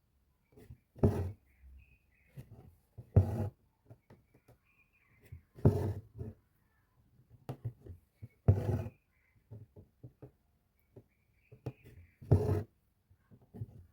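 Hand-embroidery stitching: the needle and thread are drawn through the fabric with a scratchy rasp five times, every two to four seconds, with small clicks and rustles of the needle and cloth between the pulls.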